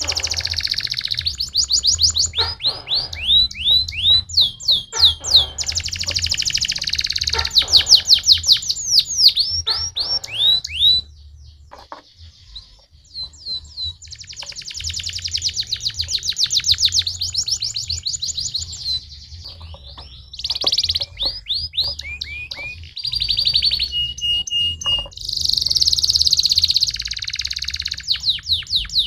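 Domestic canary singing: fast trills of rapidly repeated sweeping notes, in phrases of changing speed, with a short lull partway through and a few held whistled notes near the end. A low steady hum runs underneath.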